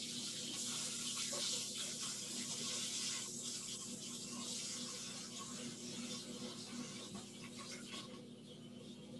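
Kitchen sink tap running as a rubber spatula is rinsed and rubbed clean under the stream, a steady water hiss that stops near the end. A steady low hum from the microwave runs beneath it.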